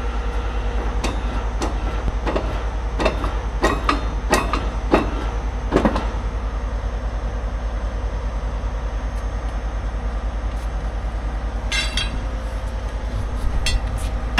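An engine idling with a steady low rumble. Over it come sharp metal clanks and knocks from tool work on the truck, several in the first six seconds, and a short rapid clatter near the twelve-second mark.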